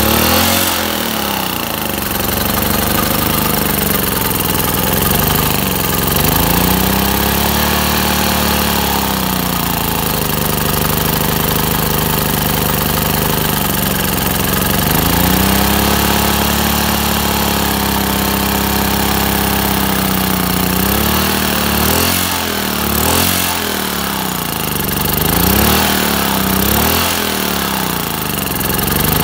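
Petrol generator's single-cylinder engine running, its speed rising and falling several times and swinging quickly up and down near the end, as the carburettor and throttle are worked by hand during adjustment.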